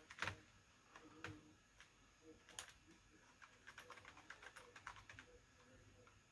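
Faint computer keyboard keystrokes: a few separate key presses, then a quick run of typing about halfway through as a terminal command is entered.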